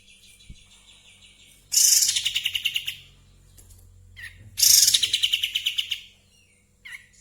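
Olive-winged bulbul (kapas tembak) singing hard in breeding condition: two loud, rapid chattering song phrases of about a second and a half each, with short single chirps between them.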